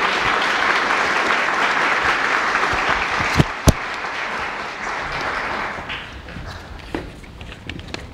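Audience applauding, dying away about six seconds in. Two sharp knocks a little past three seconds in, then a few faint clicks after the applause stops.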